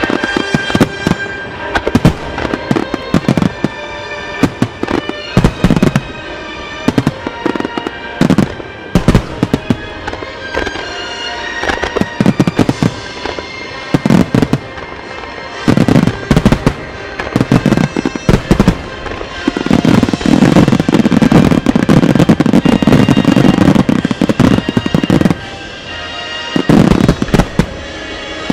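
Fireworks shells bursting in quick succession with crackling, over music playing throughout. About twenty seconds in, a starmine barrage fires a dense, unbroken run of booms for about five seconds, and another loud flurry comes near the end.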